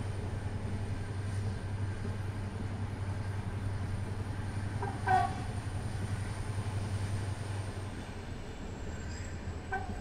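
Steady low rumble of a moving passenger train heard from inside the carriage. A short tonal sound rises briefly above it about halfway through, and another near the end.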